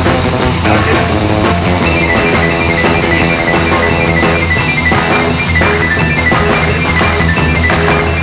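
Rock music with electric guitar and a drum kit, at a steady level, with a fast run of high picked guitar notes from about two seconds in.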